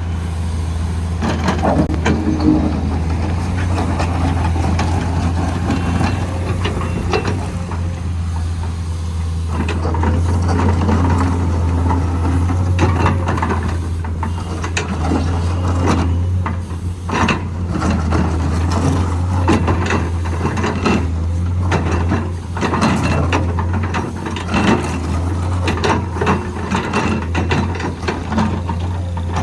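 Heavy Komatsu road-construction machine laying blacktop, its engine running steadily, with frequent irregular metallic clanks and rattles from the machine's working parts.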